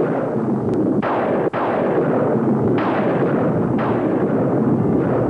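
Thunder claps over a continuous rumble, with a fresh crack about a second in, another near three seconds and a fourth about a second later, each fading away.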